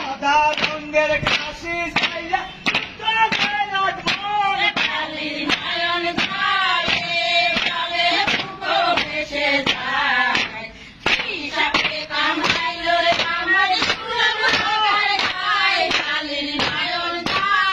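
Group of women singing a roof-beating work song in chorus, with a steady beat of sharp thuds, about two a second, as they pound the roof surface in time with the song. The singing and thuds drop away briefly about two thirds of the way through.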